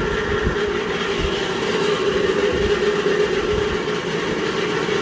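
Antique 1931 Gilbert electric fan running with a steady hum and an uneven low rumbling rattle underneath, the odd noise the old fan is making.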